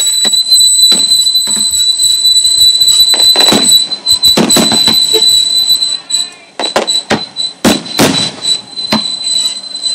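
Aerial fireworks bursting, a dense run of overlapping bangs for about the first four seconds and then separate bangs spaced out. A steady high-pitched whine runs throughout.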